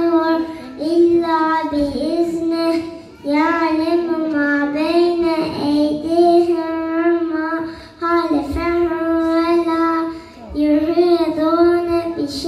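A young child singing solo through a microphone, holding long notes with wavering melodic turns, in phrases broken by short breaths about 3, 8 and 10.5 seconds in.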